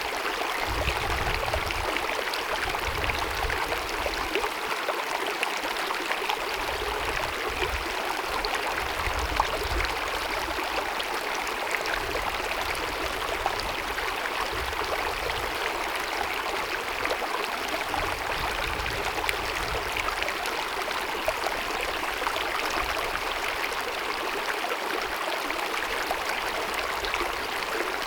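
Small mountain stream babbling and gurgling steadily over rocks, with low rumbles that come and go underneath.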